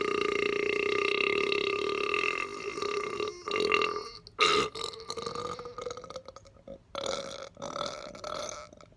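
A man's very long belch, held at a steady deep pitch for the first couple of seconds, then breaking into choppy stretches that climb slightly in pitch before cutting off near the end.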